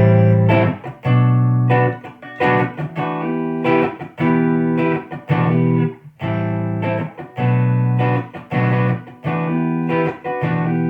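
Electric guitar chords from a 1954 Gibson Les Paul played through a Bludotone Skyliner Mini amp (tube preamp, Class-D power amp) into an Electro-Voice 12S 2x12 speaker cabinet, with no effects. The chords are struck about once a second with short breaks, and the last one rings out near the end.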